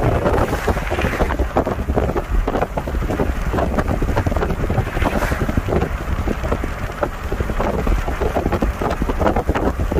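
Wind buffeting the microphone over the steady low rumble of a car driving along a road.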